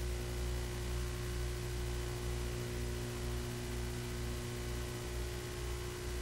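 Steady hiss with a low electrical mains hum and a faint steady tone: the background noise of an old analogue video recording, with no speech.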